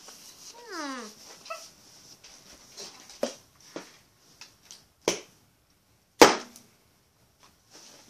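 A dog gives one short whine that falls in pitch, about a second in. Scattered clicks and knocks follow, the loudest a sharp knock about six seconds in.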